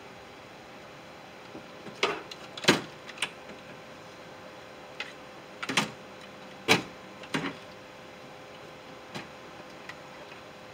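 Metal clicks and knocks of a replacement window regulator and its bolts being handled and fitted inside a pickup's steel door shell: about seven sharp, irregular clanks, most of them between two and eight seconds in.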